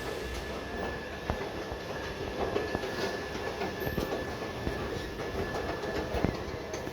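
Airport terminal shuttle train running, a steady rolling rumble with scattered clicks and a faint steady whine.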